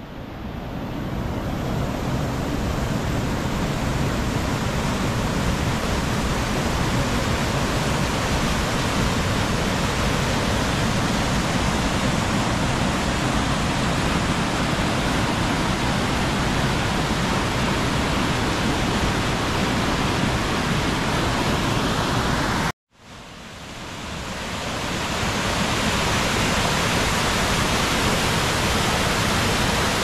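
Waterfall rushing, a steady loud wash of falling water. It cuts out abruptly about 23 seconds in and then swells back to the same level.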